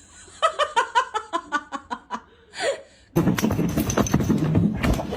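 Laughter: a quick run of "ha" bursts, about six a second, lasting roughly two seconds. About three seconds in, a loud, dense rushing noise takes over.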